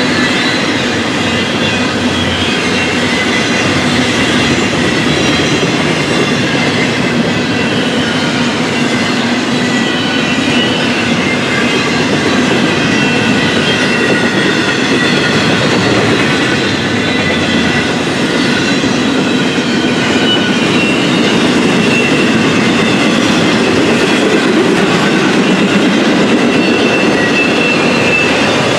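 Intermodal freight train's well cars rolling past close by, a steady loud rumble and clatter of steel wheels on rail, with a faint high wheel squeal running through it.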